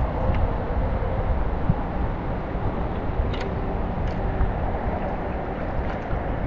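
Steady rush of river water, with wind buffeting the microphone and a couple of faint clicks near the middle.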